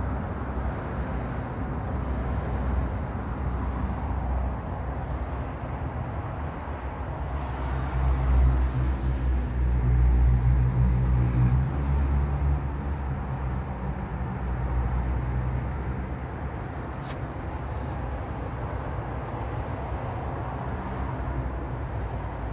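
A steady low mechanical hum with a rumble, like a running motor or nearby traffic. It grows louder from about eight to twelve seconds in, then settles back.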